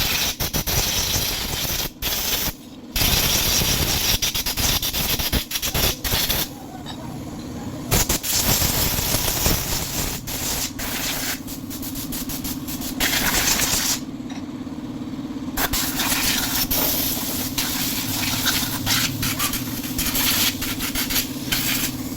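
Loud spray hissing in long bursts that stop briefly about two and a half, seven and fourteen seconds in, with a steady hum and rapid sharp clicks underneath, during cleaning of a scooter's CVT.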